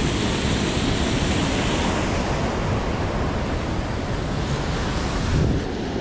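Steady rushing of fast river water, mixed with wind on the microphone; the hiss turns duller near the end.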